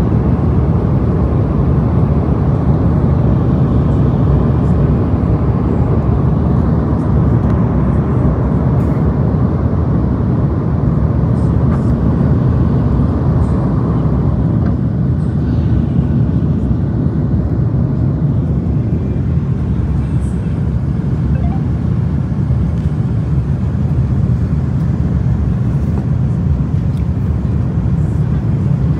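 Jet airliner's engines and rushing air heard from inside the cabin as the plane climbs after takeoff: a steady deep noise that eases slightly about halfway through.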